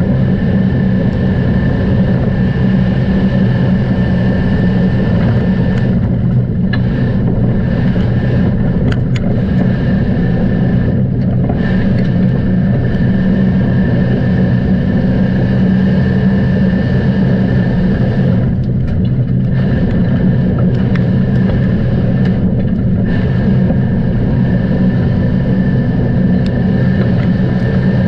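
A motor vehicle running at a steady, unchanging engine speed.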